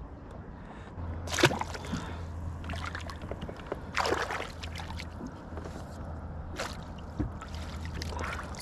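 Water splashing and sloshing beside a kayak as a landing net is dipped and swished through the lake, in four short splashes, the first the loudest, over a steady low hum.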